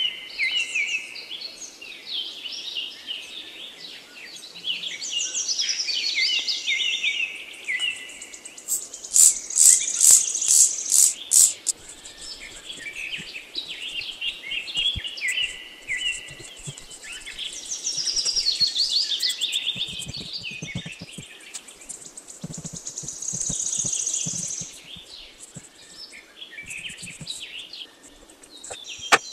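Birds chirping and singing in quick, stepped, falling phrases. About nine seconds in comes a rapid run of about seven short hissing squirts from a trigger spray bottle.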